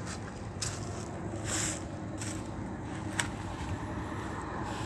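Brief rustles and scrapes from moving about among shade netting and planks, with a sharp click about three seconds in, over a steady low hum.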